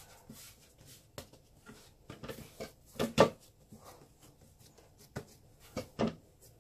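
Wooden pastry board knocking on the countertop while bread dough is pressed and rounded by hand on it, along with soft rubbing of the dough. A few sharp knocks, the loudest about three seconds in.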